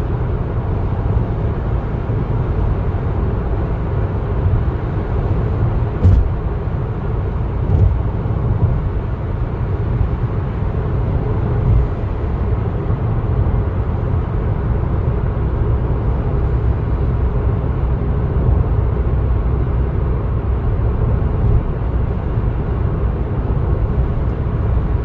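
Steady engine and road rumble of a moving car, heard from inside the cabin, with a few soft bumps about six, eight and twelve seconds in.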